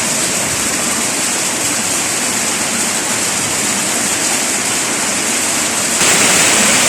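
Heavy monsoon rain pouring down as a steady, dense hiss, louder from about six seconds in.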